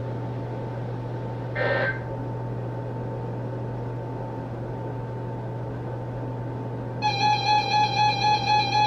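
Dead air on a weather radio broadcast: a steady low hum and hiss, with a short blip about a second and a half in. About seven seconds in, a loud pulsing electronic beep tone starts, beating two to three times a second.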